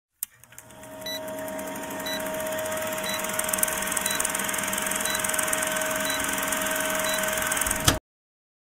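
Old film-projector countdown sound effect: a projector whirring and fluttering with a short beep about once a second. It ends with a click and cuts off abruptly.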